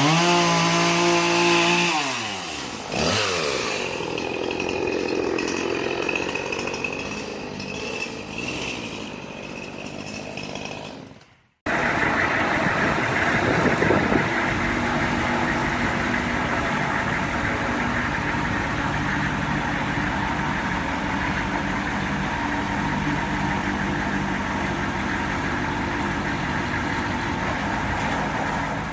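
Gas chainsaw revving and dropping back in pitch over the first few seconds, then running steadily while cutting branches. After an abrupt break a little over ten seconds in, a steady engine sound runs on.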